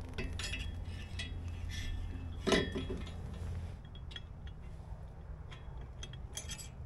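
Steel bolts and valve hardware clinking and tapping as they are handled, a string of short light clicks with one louder knock about two and a half seconds in.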